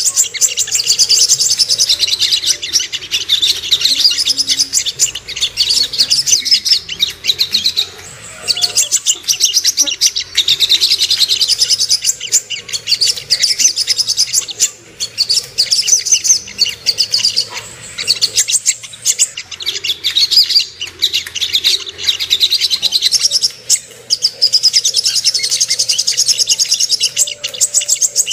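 Sogok ontong (songon) bird singing rapid, high, chattering trills in phrases a few seconds long, with brief pauses between them. This is a pancingan lure song, used to rouse a male into singing and excitement.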